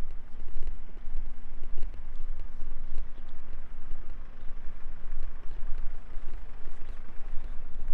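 Wind buffeting the microphone, with footsteps on pavement and a faint steady hum underneath.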